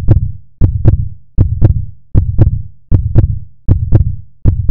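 Heartbeat sound effect: loud, steady lub-dub double thumps, a deep thud pair repeating about every three-quarters of a second.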